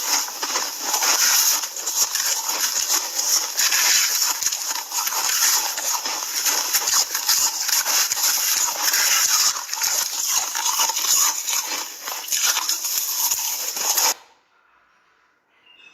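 Ice being crunched and chewed close to the microphone: a dense, loud crackling made of rapid crisp cracks, which cuts off suddenly near the end.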